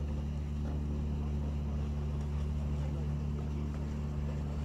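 A steady low mechanical drone, like an engine or motor running, holding one even pitch without rising or falling.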